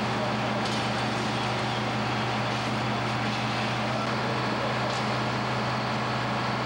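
Fire apparatus engines running steadily, a constant mechanical drone with a low hum underneath.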